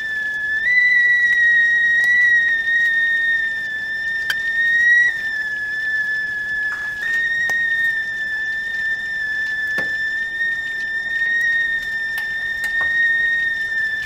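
Whistling teakettle sounding at the boil: one steady, high whistle that steps up slightly in pitch about a second in and eases back down midway, with a few faint clicks.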